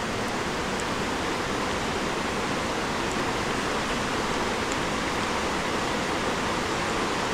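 Floodwater from an overflowing river rushing down a road, a steady even rushing noise.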